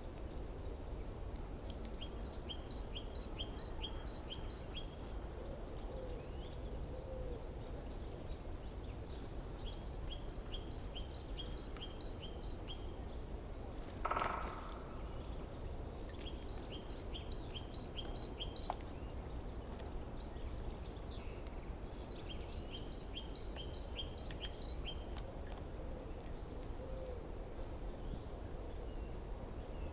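Forest stream running steadily under a songbird that sings the same phrase of about eight evenly spaced high notes four times, roughly every six or seven seconds. A single short, lower call sounds about halfway through.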